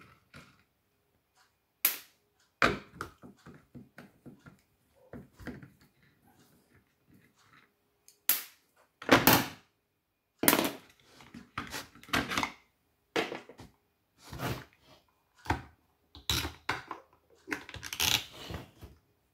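Hand tools and chainsaw parts knocking and clattering on a metal workbench while a chainsaw is taken apart: a run of separate clicks and knocks, sparse at first and coming thicker and louder in the second half.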